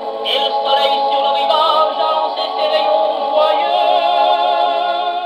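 A 78 rpm shellac record played on an HMV 102 wind-up portable gramophone: a male vocal group sings held chords in close harmony with vibrato. The sound is thin, with no deep bass and little treble.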